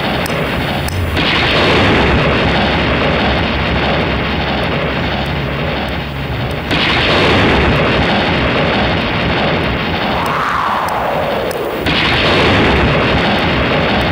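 Loud rumbling, roaring storm-like sound effect played over a theatre PA system, with a howling wind-like tone that rises and then falls about ten seconds in.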